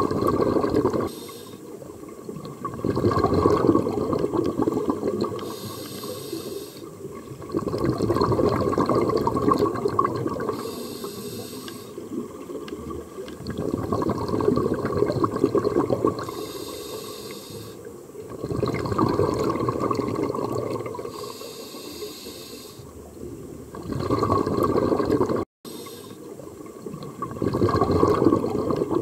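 Scuba diver breathing through a regulator, heard underwater: long gurgling rushes of exhaled bubbles alternating with shorter, higher hisses of inhalation, repeating about every five seconds.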